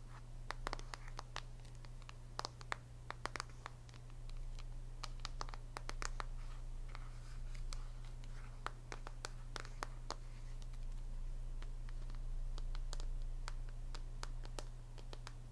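Long fingernails tapping and scratching on a smartphone case (Samsung Galaxy S5), a quick, irregular run of sharp clicks and scrapes, with a steady low hum underneath.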